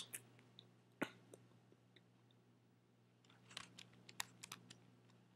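Faint computer keyboard typing: a quick run of light keystrokes about three and a half seconds in, after a single sharper click about a second in, over a low steady hum.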